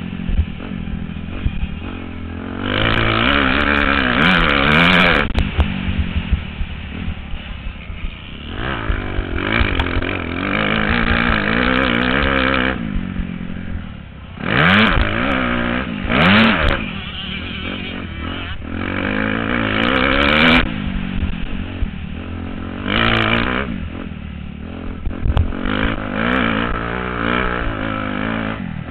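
125cc motocross bike engine revving hard and dropping back again and again as the rider races, with its pitch climbing and falling several times. A constant low rumble of wind on the helmet-mounted microphone runs under it.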